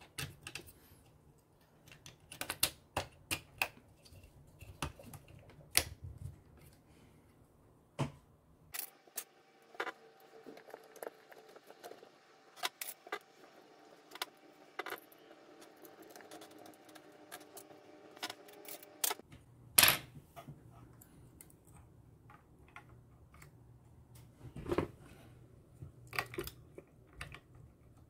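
Plastic parts of a Bambu Lab A1 Mini's extruder being handled and pressed into place: scattered sharp clicks and taps, the loudest about twenty seconds in. For about ten seconds in the middle a faint steady sound with several pitches runs under the clicks.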